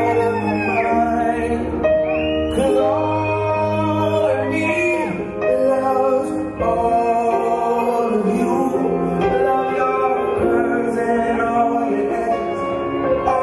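Music with a sung melody: wavering, gliding vocal lines over sustained chords and a steady low bass.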